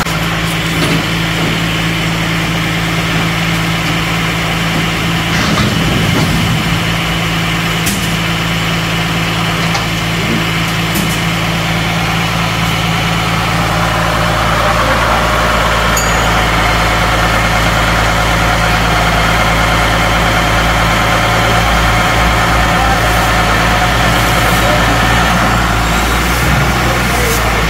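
John Deere 3350 tractor's diesel engine idling steadily, just after a hard start.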